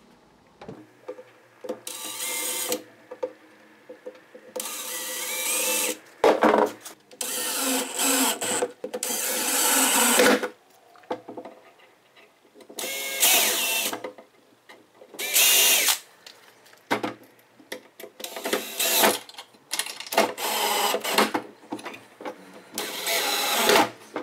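Cordless drill running in about nine short bursts of one to two seconds each, drilling holes into the chipboard kitchen cabinet panels to fix L-shaped brackets. One burst opens with a rising whine as the motor spins up.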